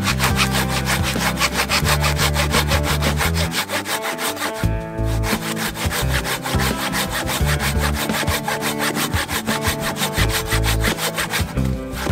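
Hand saw cutting through a tree trunk in quick, even back-and-forth strokes, pausing briefly about five seconds in and again near the end.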